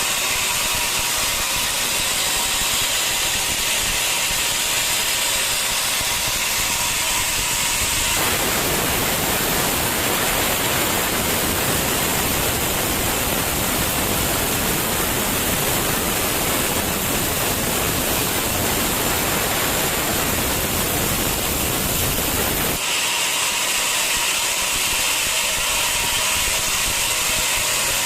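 Sawmill saw running with a steady high hiss. About 8 s in it abruptly changes to a fuller, lower noise, then switches back about 23 s in.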